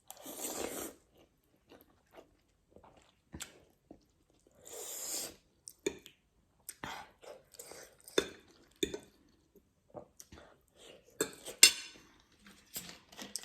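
Close-miked eating of instant noodles: chewing with many wet mouth clicks, and two longer slurps, one at the start and one about five seconds in.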